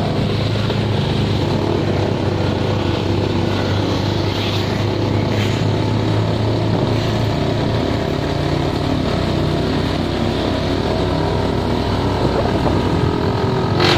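Boat engine running steadily at an even speed during a test run.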